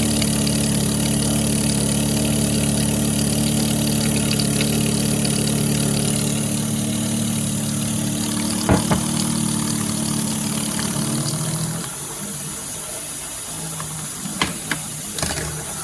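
Keurig K-Mini single-serve coffee maker running through a brew cycle: its pump hums steadily, then cuts off about 12 seconds in, with a few sharp clicks around 9 seconds and near the end. The brew gives no coffee; the water spills all over instead.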